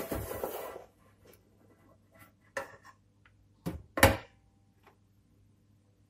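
Hard disk drive sliding out of the sheet-metal drive cage of a desktop PC case with a scrape, followed by a few handling knocks and clicks, the loudest about four seconds in.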